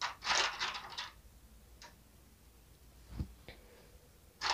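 Crinkling of a clear plastic blister tray as a tiny plastic toy cup is picked out of it, then three light clicks as small plastic pieces are set down, and a little more crinkling near the end.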